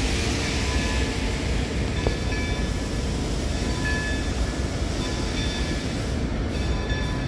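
Freight train of covered hopper cars rolling past: a steady rumble of steel wheels on rail, with short faint high squeals from the wheels now and then.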